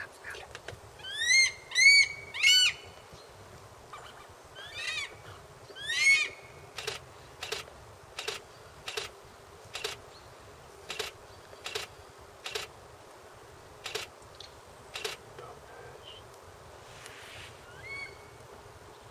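A raptor calling: a series of short, harsh calls that rise and fall in pitch, the loudest three in quick succession about a second in and a few more by six seconds. A string of short sharp clicks follows, roughly one a second, for about eight seconds.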